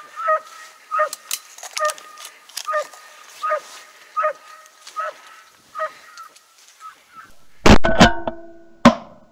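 A series of about a dozen duck quacks, evenly spaced and fading away. Near the end, shotgun fire: a quick volley of loud shots, then one more about a second later, at a duck in flight.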